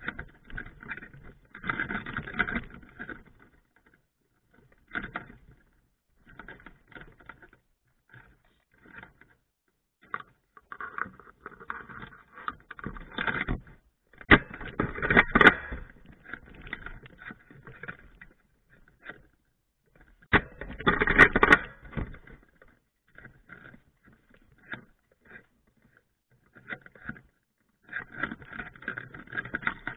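Irregular scraping and rustling of movement and handling on a gun-mounted camera, with two short sharp clicks, one about fifteen seconds in and one about twenty-one seconds in.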